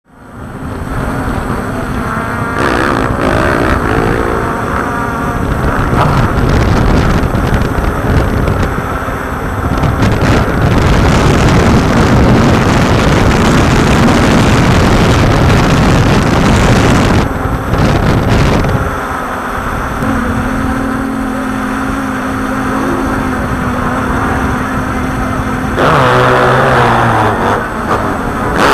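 Loud, steady motor noise with a rush of air, fading in at the start. Engine-like rising pitches come a few seconds in and again near the end, and a steady hum sets in about two-thirds through.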